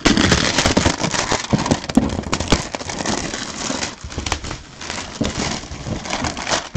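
Clear plastic shrink wrap crinkling and crackling as it is handled and pulled off a cardboard helmet box, a dense, unbroken run of crackles.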